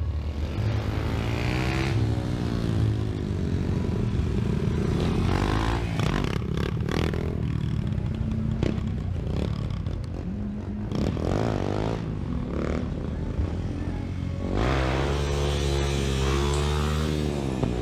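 Motorcycle engines revving up and down as stunt riders ride past, the pitch rising and falling in several arcs. The longest rev comes near the end, while a rider holds a wheelie. A steady low hum and some clatter run underneath.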